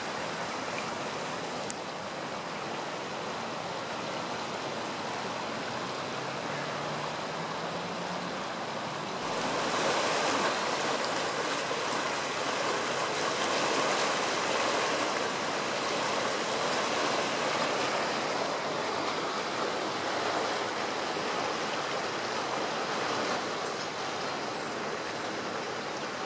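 Swollen river in flood, a steady rush of fast-flowing water. It grows louder about a third of the way in, where the current surges white against the side of a footbridge, and eases again later.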